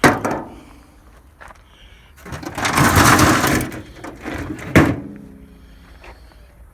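Sheet-metal parts of a microwave being handled and pulled apart: a sharp knock, a scraping rattle of about two seconds, then a second clank that rings on briefly like struck metal.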